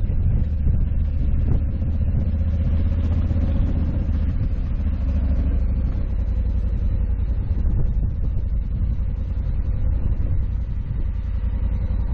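Honda Africa Twin 1100 DCT's parallel-twin engine running steadily as the motorcycle rides along a gravel road, with tyre-on-gravel noise underneath.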